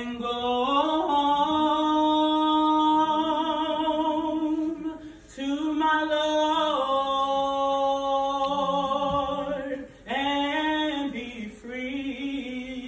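Unaccompanied singing through a microphone, in three long phrases of held, wavering notes, each breaking off briefly about five and ten seconds in.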